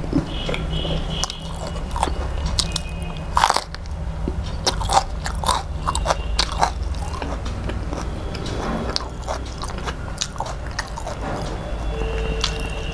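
Close-miked biting and chewing of a fried pakoda fritter, with scattered crunches and wet mouth clicks. The loudest crunch comes about three and a half seconds in.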